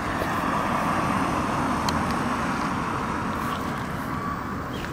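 A motor vehicle driving past on the street: engine and tyre noise that swells in the first second or two and slowly fades.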